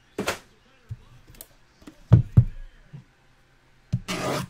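Trading cards and packaging handled on a table: a short swish, two dull thumps about two seconds in (the loudest), a few lighter knocks, and a brief rustle near the end.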